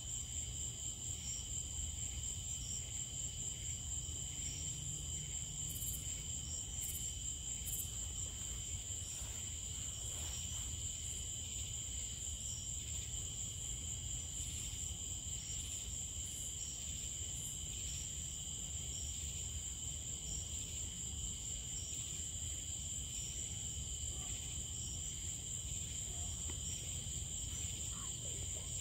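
Crickets and other night insects chirring in a steady chorus of high, unbroken trills, over a low steady background rumble.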